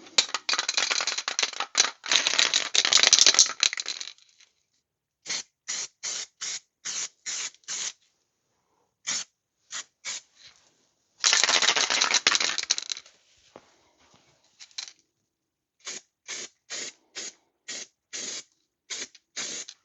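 Aerosol can of spray adhesive spraying: a long hiss of about four seconds at the start and another of about two seconds in the middle, with runs of short quick squirts, about three a second, in between and near the end.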